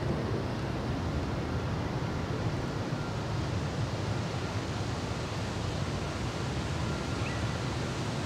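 Wind rushing over the microphone: a steady, deep rumbling noise with no distinct events.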